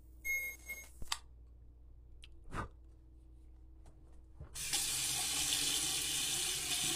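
An electric arc lighter's arc buzzes briefly at the start. About four and a half seconds in, a tap is turned on and water runs steadily into the sink basin.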